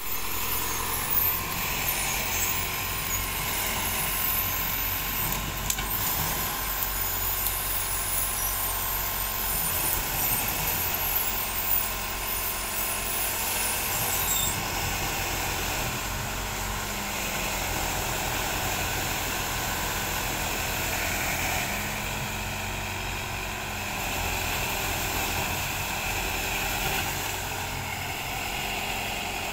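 Engine of an amphibious weed-harvesting boat running steadily as the machine moves through marsh grass and water. A high hiss sits over the engine in the first half and eases off about halfway through.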